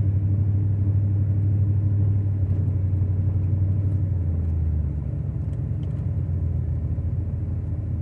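Low, steady drone of a car heard from inside the cabin while driving, engine and road rumble together. It eases off a little about five seconds in.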